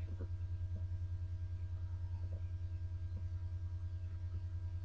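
A steady low hum with a fast, even pulse, carrying a few faint higher tones, and now and then a faint tick.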